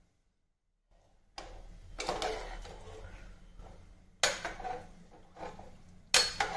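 A slotted metal spoon stirs vegetables in a metal pressure cooker, scraping and knocking against the pot, with two sharp clinks on its rim, one midway and one near the end.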